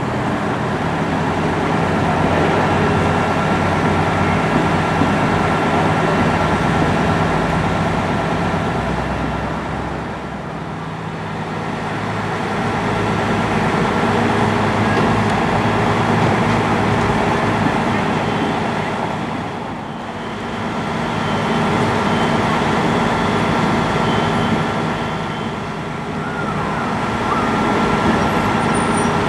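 Fire engine on an emergency response, its engine and road noise loud with a siren sounding; the sound swells and eases a few times, dipping about a third and two-thirds of the way through.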